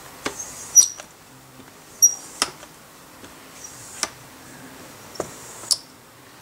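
A small cleaning pad rubbing across a glossy laptop screen, giving scattered short squeaks and taps, about one a second.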